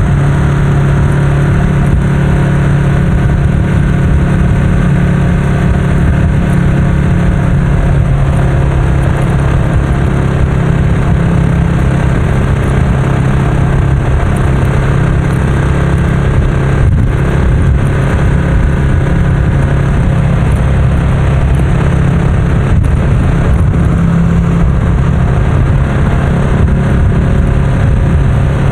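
Ducati Scrambler's air-cooled 803 cc L-twin running through a Termignoni full-system exhaust, cruising at steady motorway speed. A loud, even exhaust drone holds one pitch, with no revving or gear changes.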